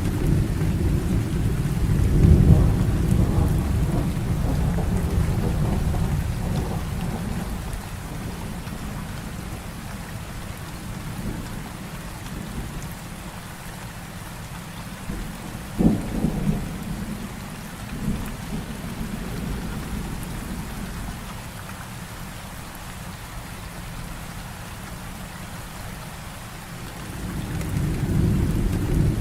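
Heavy rain falling steadily, with rolling thunder: a long low rumble in the first few seconds that slowly fades, a sharp thunderclap about halfway through with a short rumble after it, and another rumble building near the end.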